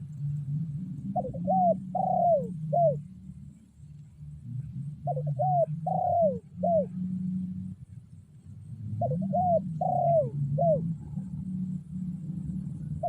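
Spotted dove (tekukur), a caged decoy calling to lure wild doves, cooing in phrases of four notes: two short, one longer, one short, each falling in pitch. The phrase repeats about every four seconds, three times over, with a fourth starting at the end. A steady low hum runs underneath.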